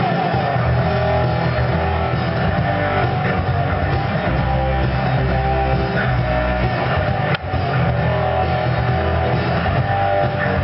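Rock music: a guitar-led instrumental passage with no singing, held notes over a steady low end.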